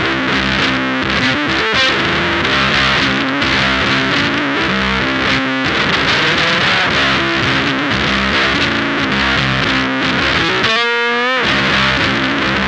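Electric guitar played through a heavily distorted octave fuzz pedal, a riff of sustained fuzzy notes and chords. Near the end the low end drops out briefly and a single note is bent and wavers in pitch before the full riff comes back.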